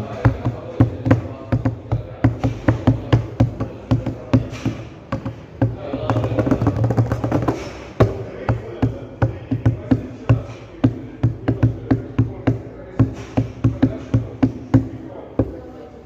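Repeated sharp knocking, about three knocks a second in an irregular run, busiest about six seconds in, over a steady low background hum.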